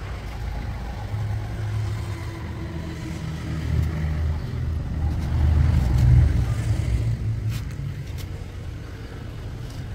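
Low, steady motor rumble that swells to its loudest about six seconds in, then eases off.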